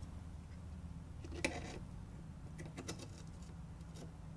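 Faint small clicks and taps of a metal M.2 heatsink cover being handled and pressed into place over an SSD on a PC motherboard. One slightly louder click comes about a second and a half in and a few more near three seconds, over a low steady hum.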